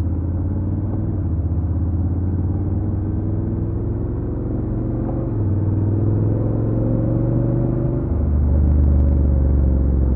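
Honda NC750X's stock parallel-twin engine running. Its pitch climbs slowly, and it grows louder in steps about five and eight seconds in, loudest near the end.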